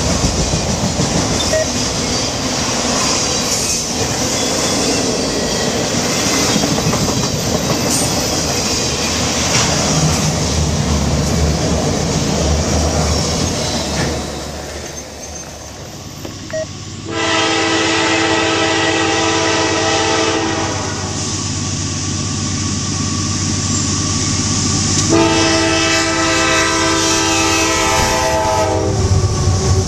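Freight train of autorack cars rolling past, wheels clacking steadily over the rail joints. After a short lull, a diesel locomotive's multi-chime air horn sounds two long blasts of a few seconds each, over the steady hum of CSX diesel locomotives passing.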